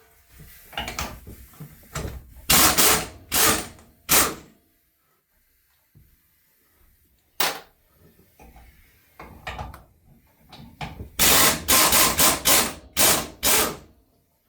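A power tool run in short bursts of about half a second, in two clusters of several bursts each, with quieter clicks and knocks of handling between them.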